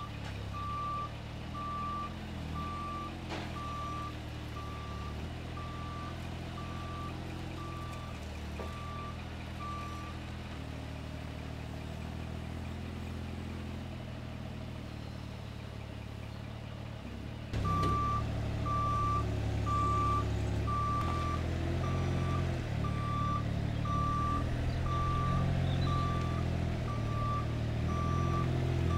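Truck-mounted forklift engine running under load, with its reversing alarm beeping steadily about twice a second. The beeping stops a little before the halfway point, then comes back together with louder engine noise after a sudden jump in level.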